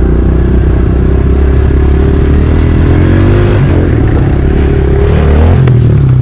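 Dirt bike engine running under way on a trail ride, its note shifting in pitch a couple of times as the throttle changes.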